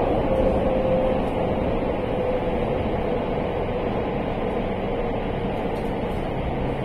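Inside-the-carriage running noise of a JR West limited express electric train travelling through a tunnel: a steady rumble of wheels and track. A faint whine slides slightly lower in pitch over the first few seconds.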